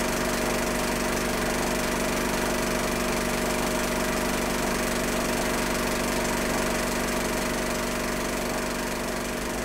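Steady mechanical drone with a fast, even flutter, unchanging throughout and easing slightly near the end.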